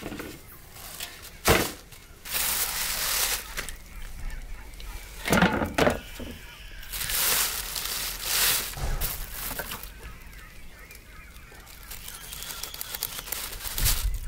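Thick black plastic sheeting crinkling and rustling in irregular bursts as a whole zander is laid on it and handled. The sharpest crackle comes about a second and a half in.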